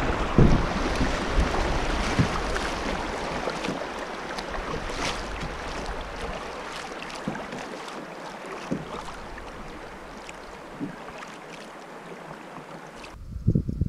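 River water rushing and splashing over shallow riffles around a drifting kayak, slowly fading as the water smooths out, with a few faint ticks; it cuts off suddenly near the end.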